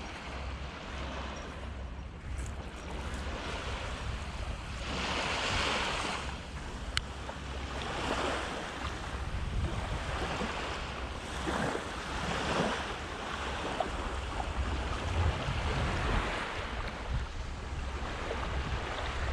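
Sea waves washing onto a beach, the hiss swelling and falling away every few seconds, with wind buffeting the microphone in a steady low rumble.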